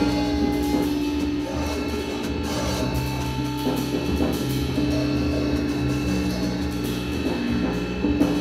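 Improvised music from a keyboard, bass and drums trio: long held tones and slowly shifting low notes over busy, scattered drum and cymbal playing.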